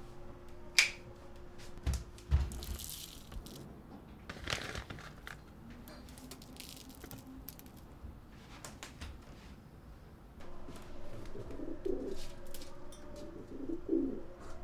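A pigeon cooing, heard as two short low coos in the last few seconds, from inside a window air conditioner unit. Before that come a few sharp clicks and knocks of handling, over a faint steady hum.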